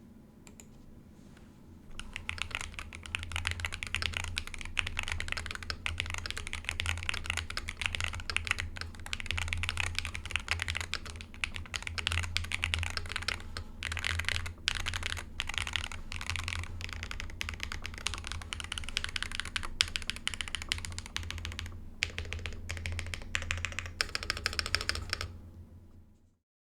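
Fast continuous typing on an Akko Mod68 keyboard with stock UR Studio Extreme Hall-effect magnetic switches and replaced keycaps, a dense run of key clicks and bottom-outs. It starts about two seconds in, pauses briefly twice, and cuts off just before the end.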